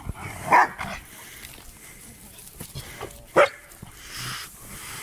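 Dalmatian puppies barking: two short, loud barks, about half a second in and again about three and a half seconds in.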